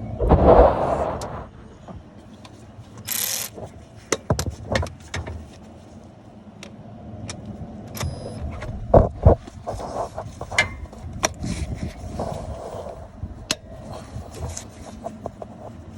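Metal hand tools clinking, clicking and knocking under the hood as the A/C compressor's mounting bolt is worked loose. A louder noisy burst at the start and a brief hiss about three seconds in, then scattered sharp knocks, the loudest a pair about nine seconds in.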